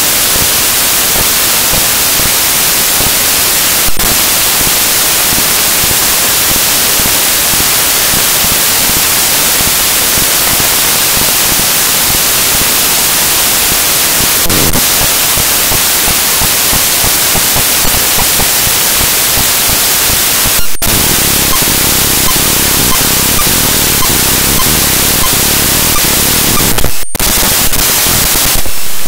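Loud, steady static hiss filling the audio track with no speech, broken by a few sharp clicks and short dropouts.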